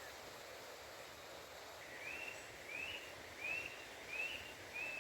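A bird singing a run of five short whistled notes, each rising and then falling, about one every 0.7 seconds, starting about two seconds in, over a faint steady background hiss.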